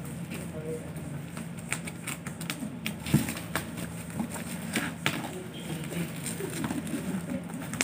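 Black plastic parcel wrapping crinkling and tearing as it is cut with scissors and pulled off a box, in irregular crackles and snaps, the sharpest about three seconds in.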